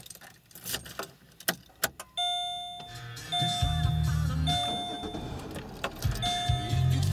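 Keys jingle in the ignition of a 2005 Chevy Malibu Maxx. About two seconds in the car is started and the car radio comes on playing music, which is the loudest thing from then on.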